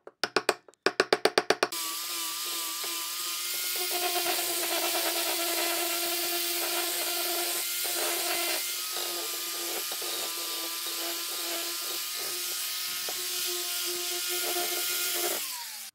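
A quick run of knocks from chisel work on wood. Then, about two seconds in, an angle grinder fitted with a sanding disc starts and runs steadily with a whine while it sands a wooden handle. Near the end it is switched off and its pitch falls as it winds down.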